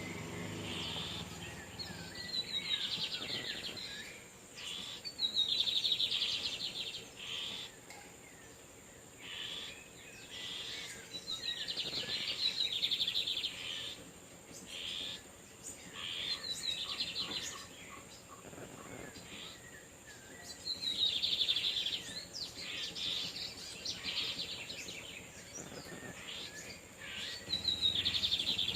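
Male lined seedeaters (Sporophila lineola) singing, trading songs: fast, twittering phrases of one to three seconds, repeated every few seconds.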